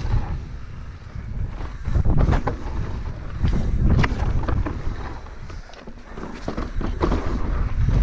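Wind buffeting the microphone of a camera on a mountain bike descending fast over rough dirt and rock, with tyre rumble and several sharp clacks and rattles from the bike as it hits bumps.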